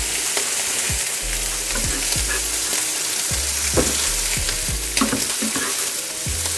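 Chicken thighs sizzling steadily in olive oil in a frying pan, with scattered knife taps on a wooden cutting board as tomatoes are cut.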